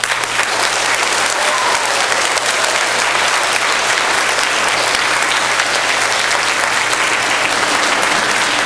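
A large audience of schoolchildren applauding, breaking out suddenly and keeping up steadily.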